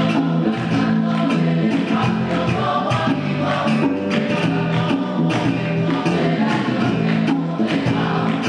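Mixed choir singing a Christmas carol (villancico) to Spanish guitars and cajón, with a steady rhythm of flamenco-style hand-clapping (palmas).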